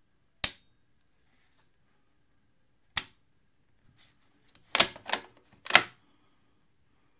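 Scoped bolt-action rifle being worked by hand: two sharp metallic clicks of the safety catch, about two and a half seconds apart, then a quick run of three or four louder clacks as the bolt is lifted and drawn back.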